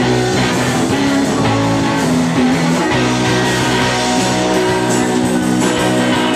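A live rock band playing loud and steady: electric bass, guitar and drum kit, with the vocals lost under the instruments in the mix.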